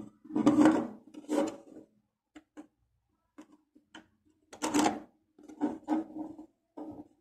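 3D-printed plastic iris box being handled, its printed parts knocking and scraping in irregular bursts, with a few small clicks in the middle.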